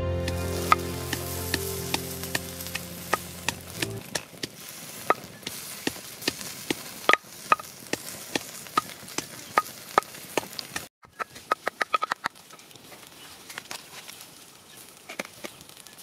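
Open wood fire crackling, with a steady hiss and sharp pops every second or so, under fish roasting on sticks; a quick run of pops comes about two-thirds of the way through. Background music fades out in the first few seconds.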